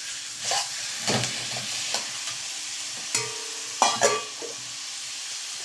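Minced chicken sizzling in a hot wok over a high flame. A utensil scrapes and knocks against the wok now and then as the meat is stirred and broken up.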